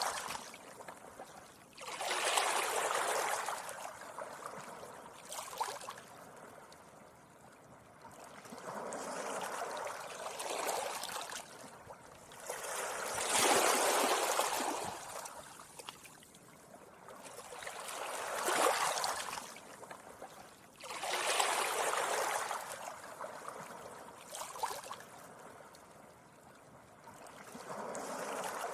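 Small sea waves washing gently up a beach, each wave a swell of hiss that rises and falls away, coming about every four to five seconds.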